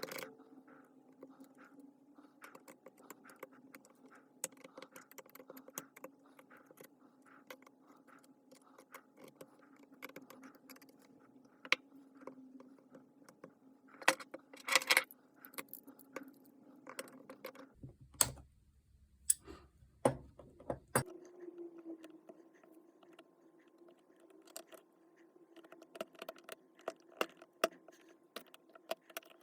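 Small metal parts clicking and clinking as they are handled, with a faint steady hum underneath.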